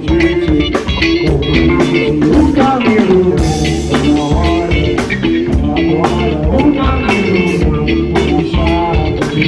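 Live rock band playing: electric guitar, bass and drums with a steady beat, no singing in this stretch.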